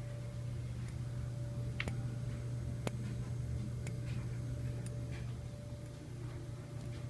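Fire alarm strobes flashing with the horns silenced, each flash giving a faint click about once a second over a steady low hum.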